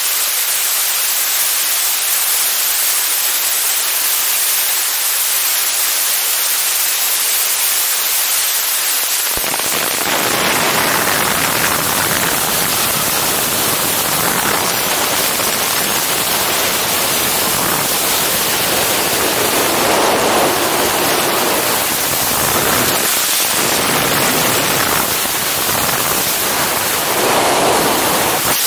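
Wind rushing over a helmet camera's microphone during wingsuit freefall: a loud, steady hiss that turns suddenly into a heavier, lower, buffeting rush about nine seconds in.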